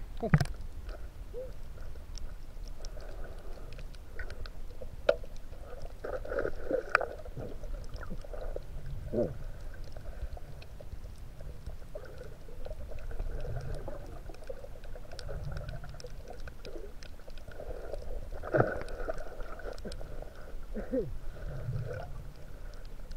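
Underwater sound from a camera submerged in shallow seawater: a muffled low rumble of moving water that swells and fades, with scattered faint clicks.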